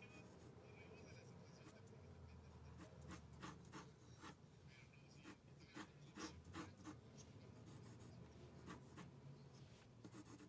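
Faint scratching of a drawing tool's tip on paper, in short strokes, clustered between about three and seven seconds in and again near nine seconds, over a low steady hum.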